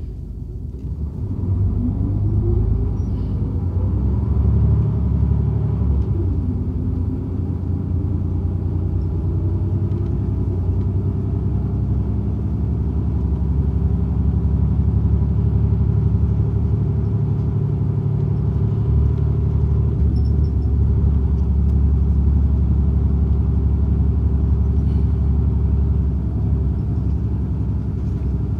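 City bus engine and drivetrain heard from inside the passenger cabin: a steady low rumble that grows louder about two seconds in, with rising tones as the bus picks up speed, then running on evenly.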